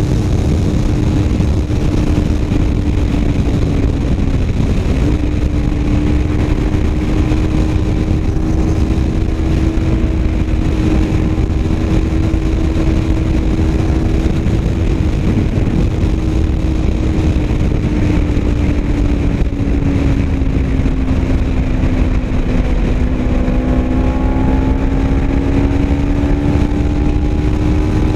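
Kawasaki Ninja 250 parallel-twin engine cruising on the move, with heavy wind rush over the microphone. The engine note sags slightly past the middle, then climbs again near the end as the bike speeds up.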